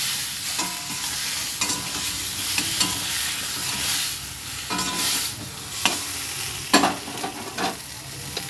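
Tomato pieces sizzling in hot oil with mustard seeds in a kadai as they are stirred, with a utensil knocking and scraping against the pan several times.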